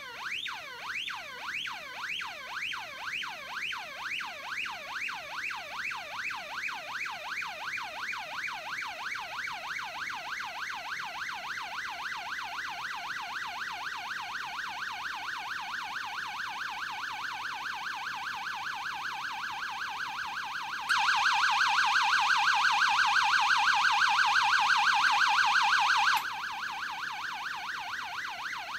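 Avro Shackleton stall warning tone generator sounding a warbling, frequency-modulated tone whose warble quickens as the simulated angle of attack rises. About two-thirds of the way through, the tone steps abruptly louder at the stall threshold, where the stick-shaker relay is energised, then drops back with a click and the warble slows again.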